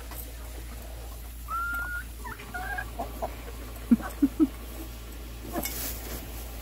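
Domestic hens vocalising while they eat: a held call about a second and a half in, some short chattering calls, then three short, loud, low clucks around four seconds in. A brief rustle near the end.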